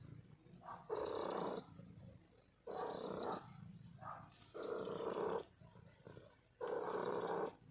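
Domestic cat purring loudly right at the microphone, in four long surges about two seconds apart with softer purring between.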